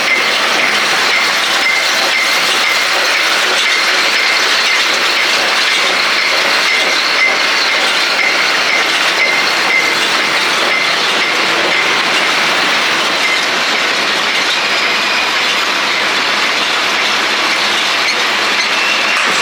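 John Deere 561M round baler running, a steady, loud mechanical clatter and rattle without a break.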